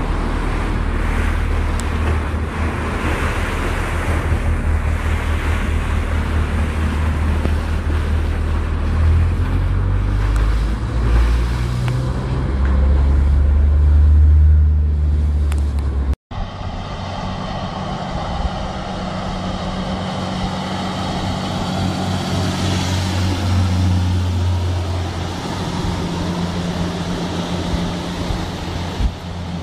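Heavy low engine and wind rumble on board a ship, then, after a sudden brief dropout about sixteen seconds in, a steady boat-engine drone as a pilot boat runs at speed.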